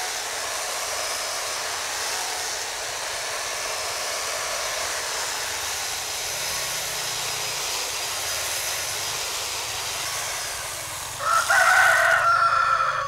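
A steady rushing background noise, then about eleven seconds in a rooster crows once: a loud call of about two seconds that falls away at the end.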